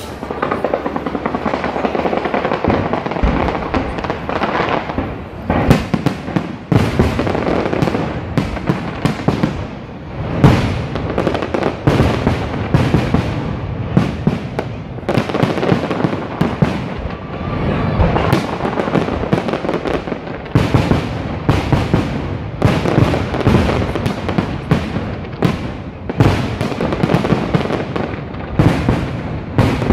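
Fireworks display: a dense, continuous barrage of shell bursts and crackle, with many sharp bangs coming close together and irregularly, loud throughout.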